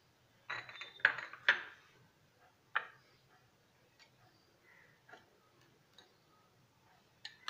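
A metal spoon clinking against a small glass bowl: three quick clinks in the first second and a half, another about a second later, then a few faint taps.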